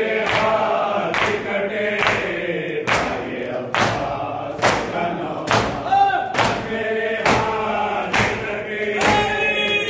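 A group of men chanting a nauha (Shia mourning lament) in unison, with rhythmic chest-beating (matam): hand slaps on chests land together on the beat a little faster than once a second.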